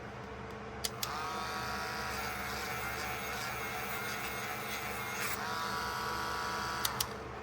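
A small motorised wire brush clicked on and whirring steadily for about six seconds, with a brief break near the end, then clicked off: brushing rust off a pocket knife to uncover its stamped pattern number.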